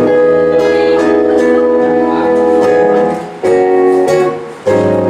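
Instrumental music from a sound check, with guitar prominent, playing sustained chords. The sound drops briefly twice, about three and a half and four and a half seconds in, as the chords change.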